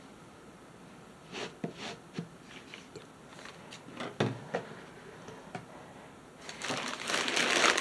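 A few soft knocks and taps from handling, then a plastic shipping mailer bag crinkling and rustling from about three-quarters of the way in, the loudest part.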